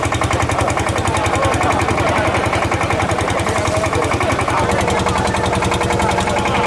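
An engine running steadily with a rapid, even beat of about a dozen pulses a second.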